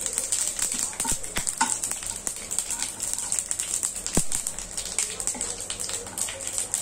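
Cumin seeds crackling and sizzling in hot oil in a frying pan as they are tempered: many quick irregular pops over a steady hiss, stirred with a spatula. One sharper knock about four seconds in.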